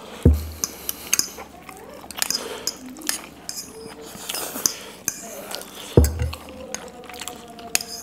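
Forks and spoons clinking and scraping against small ceramic bowls while noodles are eaten, with many light clicks and two louder knocks with a dull thud, just after the start and about six seconds in.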